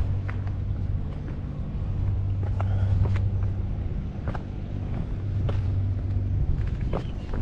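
A steady low engine drone, with scattered short crunching steps over it.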